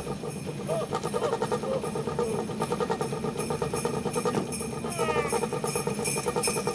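Sleigh bells shaking in a fast, steady jingle as a sound effect for a flying Santa's sleigh, with a few short falling tones about five seconds in.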